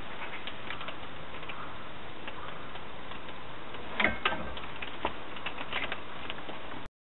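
Hulme Martin HM1300D foot-operated impulse heat sealer: a sharp clack from the sealing jaw about four seconds in, followed by a few light ticks and crinkles of the plastic bag being drawn out, over a steady hiss.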